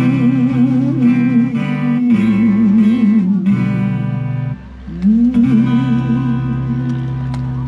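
Live acoustic music: guitar accompanying a voice that holds long notes with vibrato, in two phrases with a brief break about four and a half seconds in.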